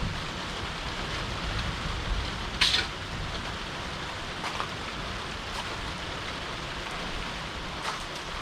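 Steady rain falling, with one sharp knock about a third of the way through.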